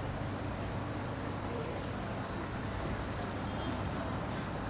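Steady low machine hum with a thin, faint high tone held above it and a few light ticks.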